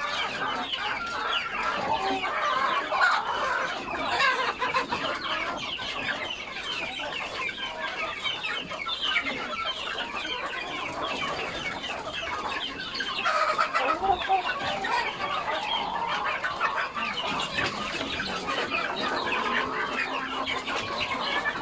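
A flock of chickens clucking and calling over one another in a dense, continuous chorus.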